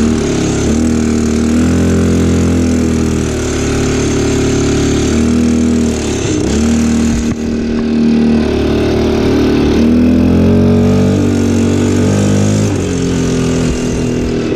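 ATV engine running while riding, its revs rising and falling several times as the throttle is opened and eased.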